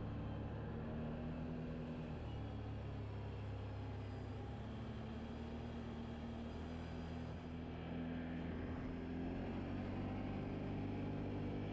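Can-Am XMR 1000 ATV's V-twin engine running steadily at road speed. It eases slightly about seven and a half seconds in, then rises in pitch as it accelerates near the end.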